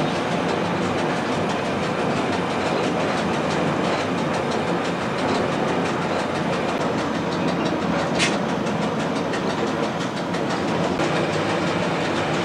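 SAR Bluebird diesel railcar heard from on board while running: a steady rumble of engine and wheels on rail, with faint regular clicks from the rail joints. A brief sharp high hiss or squeal sounds about eight seconds in.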